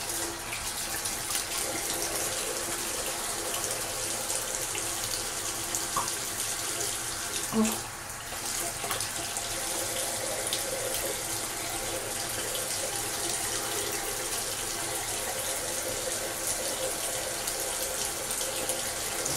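Bathroom sink tap running steadily into the basin, with a short knock and a brief drop in the flow's sound about eight seconds in.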